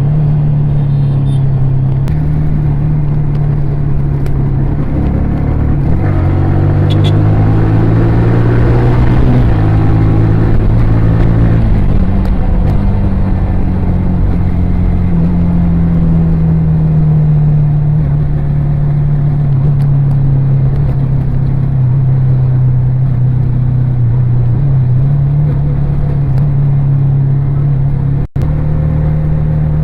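Yamaha R15 V3's single-cylinder 155 cc engine and exhaust on the move. The engine note rises and drops a couple of times between about six and thirteen seconds in, then holds steady while cruising. The sound cuts out very briefly near the end.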